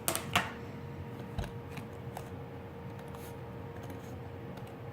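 Objects being handled for slime making: two sharp clicks right at the start, then a few faint scattered ticks over a faint steady hum.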